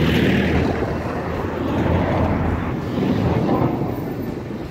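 Road traffic: a truck's engine and tyres passing very close, loudest near the start, with other vehicles moving through the junction.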